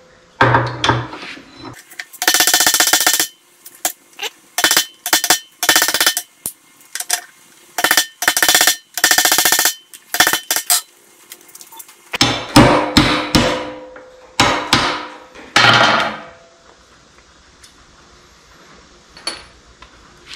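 Hammer blows on a punch driving old aluminum rivets out of a metal switch part clamped in a bench vise: sharp metal-on-metal strikes in irregular bursts, with two runs of quick repeated taps. The hammering stops about 16 seconds in.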